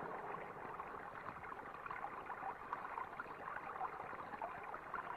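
Water flowing and splashing steadily: pumped well water running into irrigation canals.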